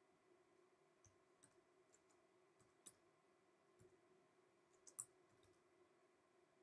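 Faint, irregular keystrokes on an Acer laptop keyboard as a command is typed, the loudest taps about three and five seconds in, over quiet room tone.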